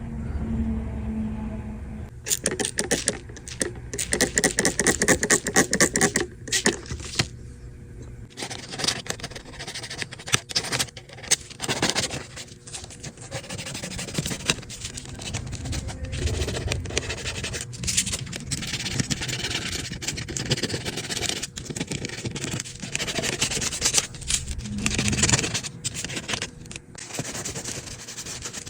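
Scrubbing and scraping grime off a dirty iPad case, in fast rapid strokes that come in bursts with short pauses.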